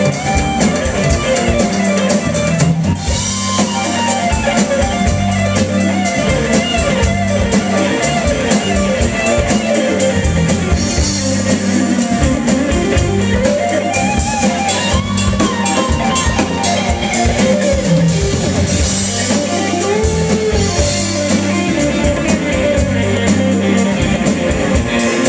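Live rock band playing: a lead electric guitar with bent notes over electric bass, drum kit and keyboard.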